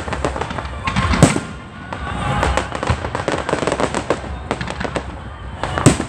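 Aerial fireworks bursting overhead: rapid crackling and popping throughout, with a loud bang about a second in and another near the end.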